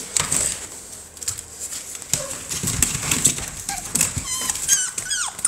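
American Bully puppies clambering in a plastic kiddie pool, their claws scratching and clicking on the plastic and the bedding shavings. Near the end a puppy whines in a few high, sliding cries.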